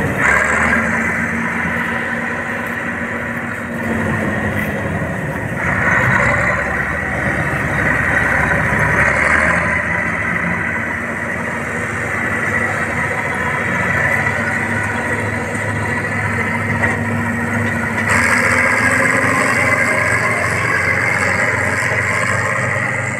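Bizon Z056 combine harvester's six-cylinder diesel engine running steadily, its drone shifting in character a few times, about 4, 6 and 18 seconds in.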